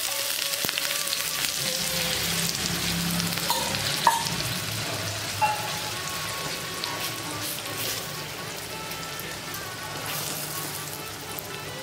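Besan batter sizzling in hot oil on a cast-iron tawa as it is spread out with a spoon, a steady frying hiss. The spoon knocks sharply against the pan twice, about four and five and a half seconds in.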